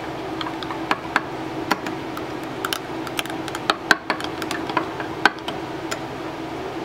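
Metal knife stirring liquid soft plastic in a glass measuring cup, clinking and scraping against the glass in irregular clicks, over a steady low hum.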